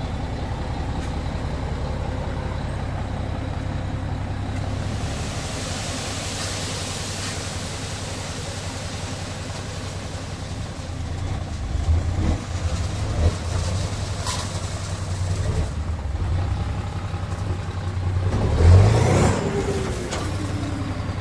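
Mitsubishi Fuso dump truck's diesel engine running steadily while its tipper body is raised, with a hissing rush about a quarter of the way in. The engine picks up and surges louder in the second half, most strongly a couple of seconds before the end.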